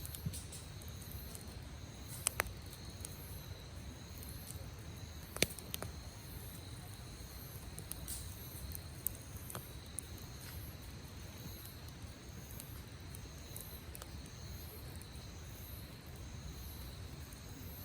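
Wood campfire crackling, with a few sharp pops about two and five seconds in, over a low steady rumble. A steady high insect trill runs underneath throughout.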